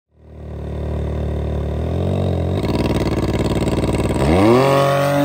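Can-Am Maverick R's turbocharged three-cylinder engine running through a 3-inch muffler-delete straight pipe. It holds a low steady note, then revs up sharply about four seconds in and holds the higher pitch.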